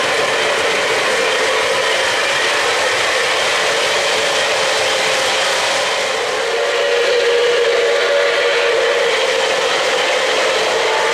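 3-rail O-gauge model trains running on the layout's track: a steady rolling rumble and clatter. A steady whistle-like tone grows louder about six seconds in.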